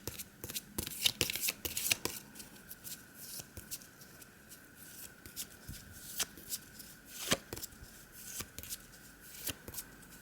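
A deck of Lenormand cards being shuffled by hand: a quick run of papery flicks and snaps in the first two seconds, then scattered single taps of cards.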